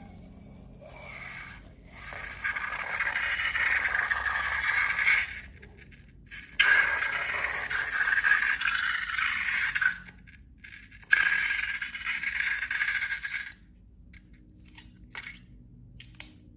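Three long scraping strokes of a few seconds each, then a few light clicks near the end.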